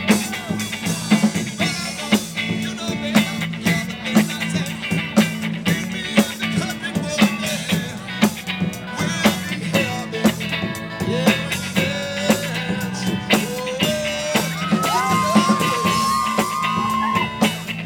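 Live band playing with electric guitar and drum kit, a steady beat throughout. A long held high note comes in near the end.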